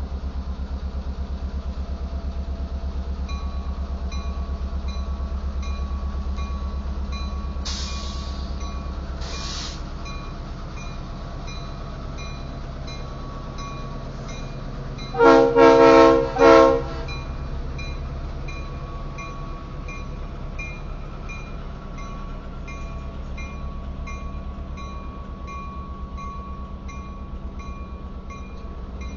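EMD GP38-2 diesel-electric locomotive's 16-cylinder engine running as it slowly pulls covered hopper cars past, with a quick series of short air-horn blasts about halfway through. Two short hisses come a few seconds before the horn.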